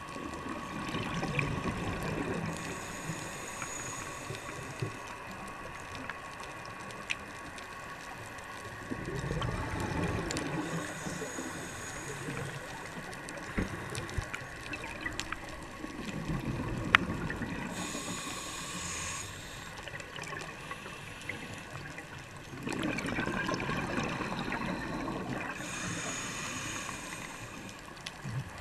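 Scuba regulator breathing heard underwater: about four slow breaths, each a gurgling rush of exhaled bubbles followed by the hiss of the next inhale, with a few sharp clicks between.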